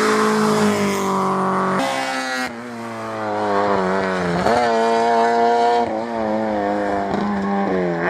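Rally car engine running at high revs. Its pitch dips about two seconds in and again about halfway, each time climbing back, then wavers near the end.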